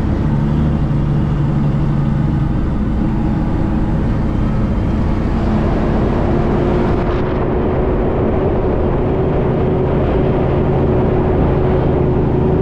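International ProStar semi-truck's diesel engine running steadily while driving, with road noise; a steady hum sets in about halfway through.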